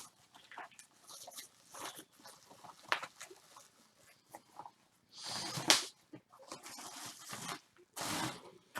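Cardboard box and its packing being handled: irregular scraping, crackling and rustling, with two louder rustling bursts about five and eight seconds in.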